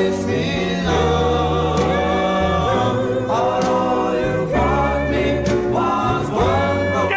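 Music: a choir singing held notes over a deep bass.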